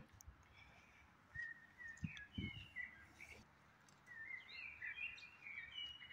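Small birds chirping faintly in runs of short high calls, one from about a second and a half in and another from about four seconds in, over a faint steady hiss. Two brief low knocks come a few seconds in.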